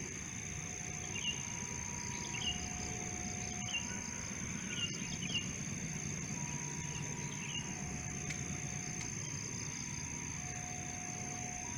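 Low, steady rumble of an approaching diesel train still some way off, under a constant high insect drone and scattered bird chirps. A faint two-note tone alternates between a lower and a higher pitch, each held about a second.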